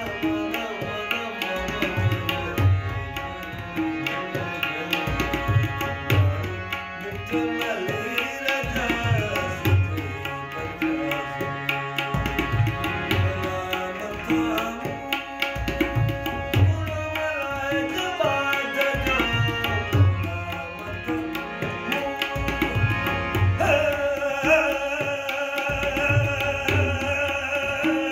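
Tabla keeping a rhythmic cycle with deep bass strokes, under harmonium drones and a man singing a bandish in Raag Asa; near the end the voice slides up into a long held note.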